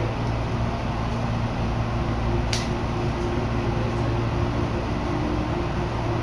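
Tobu Urban Park Line commuter train running between stations, heard from inside the car: steady running noise with a low motor hum. A single sharp click about two and a half seconds in.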